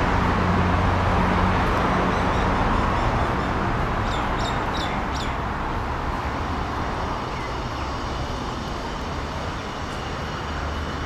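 Street traffic: vehicles driving past, with a low engine hum that is loudest at first and slowly fades, and a few short high chirps about four to five seconds in.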